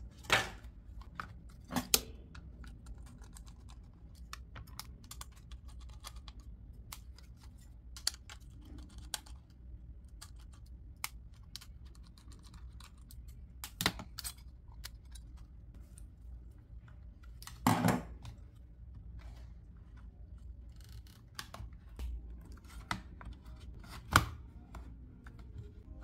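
Scattered clicks and small knocks of a 2.5-inch hard drive and SSD being handled in an open laptop's drive bay, plastic and metal parts tapping together while the SSD is fitted and screwed in with a screwdriver. Five or so louder knocks come through it.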